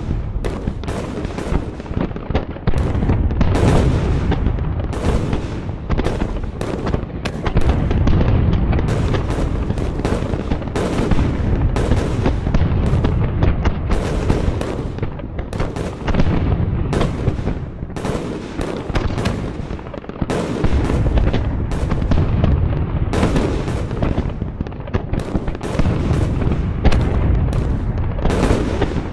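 Modern battle sound effect: a dense run of gunfire and explosions, many sharp cracks several times a second over a continuous deep rumble of blasts.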